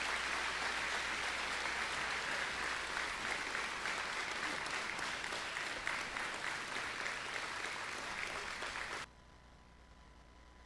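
Audience applauding steadily, a dense clapping that cuts off suddenly about nine seconds in.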